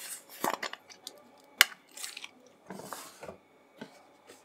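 A utensil scraping and clinking against a stainless steel mixing bowl while egg salad is stirred, with one sharp clink about a second and a half in.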